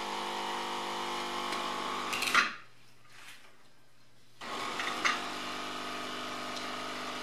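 Jura Impressa S95 fully automatic coffee machine making a coffee: a steady motor run, the bean grinder, that ends with a loud clunk about two and a half seconds in, a quieter pause of about two seconds with a low hum, then the pump starting up and running steadily as coffee pours into the cup, with a knock soon after it starts.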